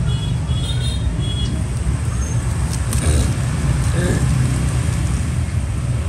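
Steady low rumble of background road traffic, with a faint voice briefly about halfway through.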